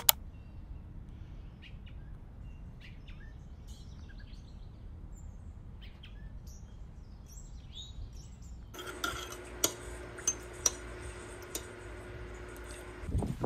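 Small birds chirping faintly and sporadically over a low steady outdoor rumble. About nine seconds in the background changes to a steady hum with a few sharp clinks.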